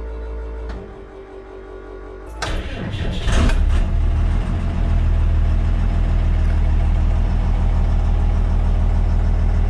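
Diesel engine of a 2000 Freightliner school bus cranking and catching about two and a half seconds in, flaring briefly, then settling into a steady idle.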